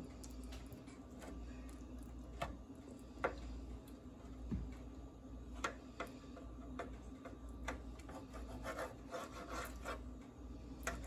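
Knife cutting into a baked salmon fillet on a metal baking sheet: scattered light clicks and scrapes as the blade meets the pan, more frequent near the end, over a low steady hum.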